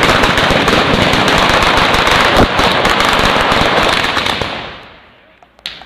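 Mascletà firecrackers on a hung cord going off in a dense, unbroken rattle of sharp bangs. The rattle dies away about four and a half seconds in, with one more crack near the end.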